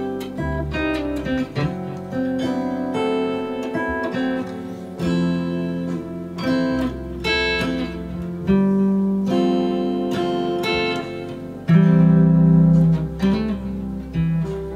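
Paul Reed Smith Hollow Body II guitar playing a slow chord-melody piece: chords struck with melody notes ringing over held bass notes, one louder chord near the end.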